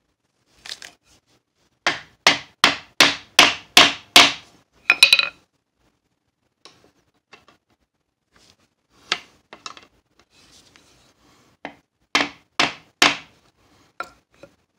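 Hammer tapping a metal radius caul with a saw-cut groove, seating fret wire into a fretboard slot. There is a quick run of about seven sharp taps, then a clatter with a metallic ring, then scattered lighter taps and a final group of three.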